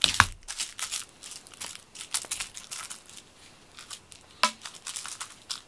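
Cat teaser toys swished and dragged across a quilted fabric blanket while a cat bats at them: a run of short scratchy rustles. There is a sharper one just after the start and another about four and a half seconds in.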